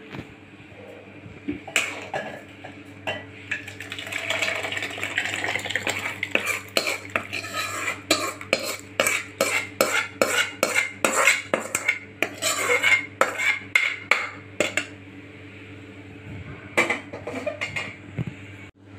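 Metal spoon clinking and scraping against an aluminium kadai as tomato rasam is tipped out into a steel pot. It comes as a run of quick metallic clinks, about two or three a second, through the middle of the stretch, with a few more near the end.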